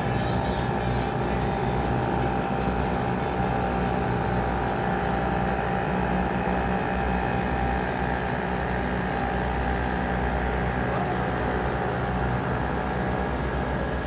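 British Seagull two-stroke outboard motor running steadily at an even speed.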